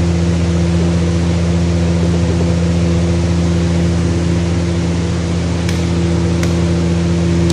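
Loud, steady mechanical hum at one constant pitch, with two light clinks of a metal ladle against steel dishes about six seconds in.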